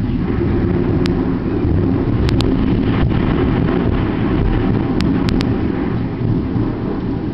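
Long, loud rolling rumble of thunder that swells as it begins and slowly fades near the end, with a few sharp clicks along the way.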